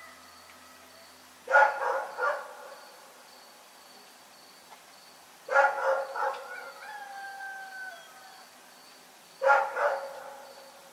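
A dog barking in three short bouts of two or three barks each, about four seconds apart. A long falling howl-like tone follows the second bout.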